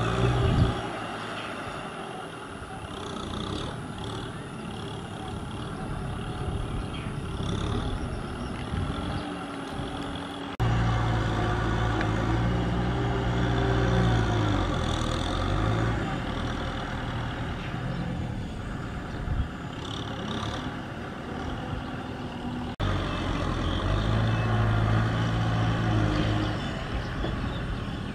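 Small farm tractor's diesel engine running steadily under load as it works a flooded paddy field. The sound jumps abruptly louder about a third of the way in and again near the end.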